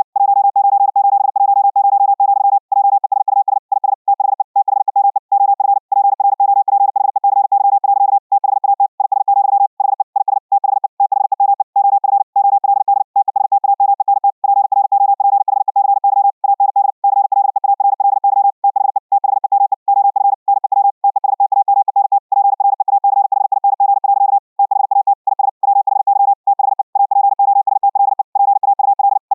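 Fast Morse code (CW) at 60 words per minute: a single steady electronic tone keyed on and off in quick dots and dashes, with brief gaps between characters and words. It is received back as audio that has passed over the internet through the Vorbis codec.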